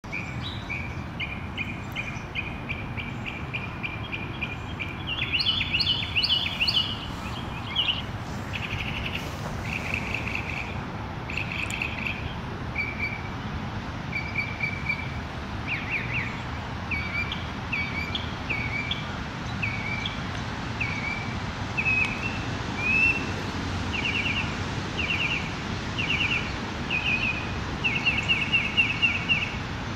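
Northern mockingbird singing, a string of short phrases each repeated several times before it switches to a new one, over the steady hiss of rain.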